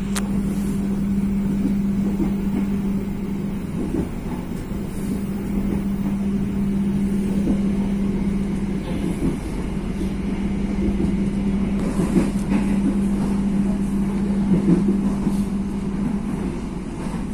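Train noise: a steady hum over an even running rumble, with a few faint knocks.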